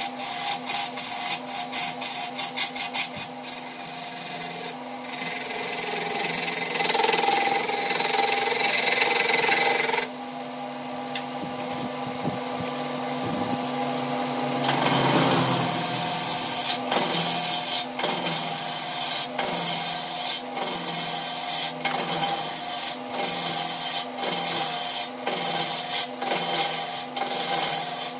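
Burt wood lathe running with a steady motor hum while a turning tool cuts the spinning log, a rasping scrape with rapid ticks at first. The cutting stops for a few seconds past the middle, leaving only the hum. It then comes back as evenly spaced scraping strokes, a little more than one a second.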